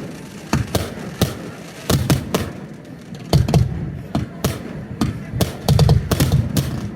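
Fireworks display: aerial shells bursting in irregular succession, a dozen or more sharp bangs, some in quick clusters, each followed by a deep rumbling boom.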